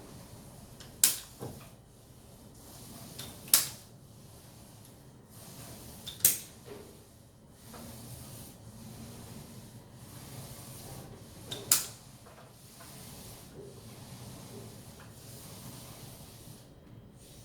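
Soft rubbing of a finger smoothing a fresh bead of caulk, with four sharp clicks spread across it, about one, three and a half, six and twelve seconds in.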